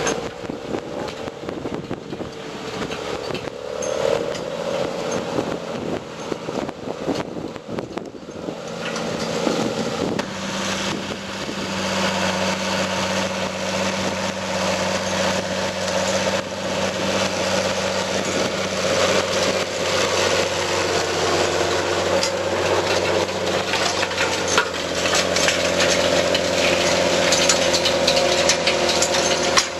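Large farm tractor engine running steadily under load as it pulls a deep-tillage cultiplow through the soil. It grows louder from about ten seconds in and again near the end as the tractor comes close.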